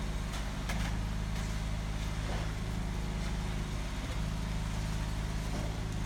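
A large engine running steadily at a constant speed, with a few short clicks and scrapes over it.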